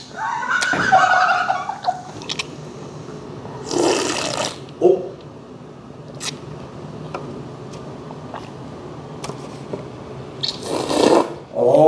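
Slurping cold naengmyeon broth and noodles from a large stainless-steel basin: a loud slurp about four seconds in and another near the end, with a few small clicks in between.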